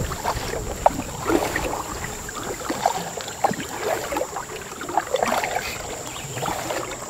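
Canoe being paddled on a river: the paddle dips and pulls through the water, with irregular small splashes, drips and gurgles against the hull.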